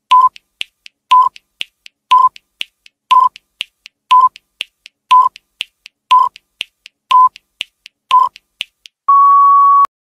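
Countdown timer sound effect: a short electronic beep each second, with two quieter ticks between beeps, nine beeps in all. Near the end comes one longer, slightly higher beep signalling that time is up.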